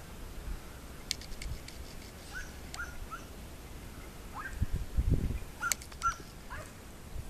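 Dogs yelping in short, high calls, repeated several times, among scattered sharp clicks. A low rumble on the microphone about two-thirds of the way through is the loudest sound.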